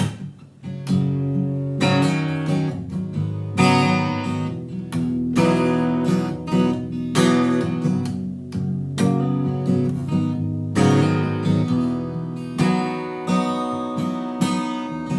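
Music: an acoustic guitar strumming chords in a steady rhythm, an instrumental song intro.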